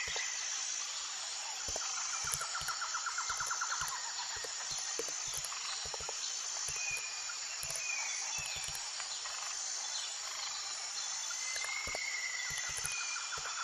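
Steady chorus of insects chirping: a continuous high buzz with repeated rapid trills, and scattered soft low thumps.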